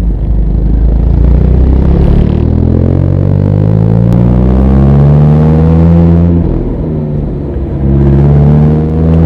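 Mazda Roadster (ND MX-5) four-cylinder engine pulling hard uphill, revs climbing steadily for several seconds, then falling briefly at a gear change before climbing again near the end.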